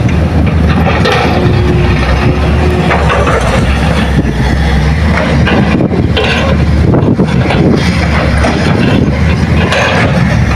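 Diesel engines of a Hitachi hydraulic excavator and dump trucks running steadily with a low drone. A brief steady whine comes about a second in, and there are a few scattered knocks.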